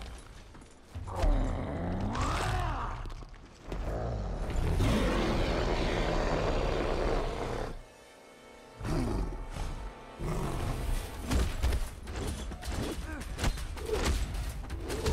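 A monster roars twice in long stretches over a dramatic film score, then a rapid flurry of punches and hits with grunts in the last few seconds.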